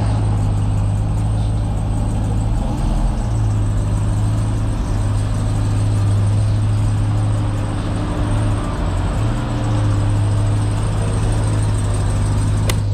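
Ram 1500 TRX's supercharged 6.2-litre HEMI V8 running steadily, a constant low hum.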